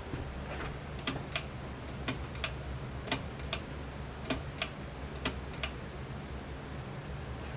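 Casablanca Panama ceiling fan with an XTR 200 motor running with a low steady hum, while sharp ticks come in pairs about once a second, five pairs in all, stopping a little past halfway.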